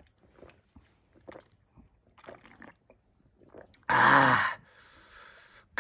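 A person gulping a drink from a can: faint, short swallowing sounds, then about four seconds in a loud, satisfied 'ahh' followed by a long breathy exhale.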